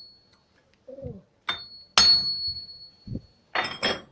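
Metal struck with a hammer, each blow leaving a ringing tone: one blow, then a louder one that rings on for about a second, then two quick clanks near the end.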